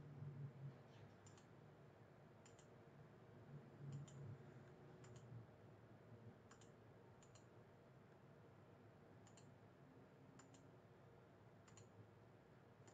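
Faint computer mouse clicks, about a dozen at irregular intervals, over quiet room tone, as a slider is dragged and set. A faint low hum swells briefly near the start and again about four seconds in.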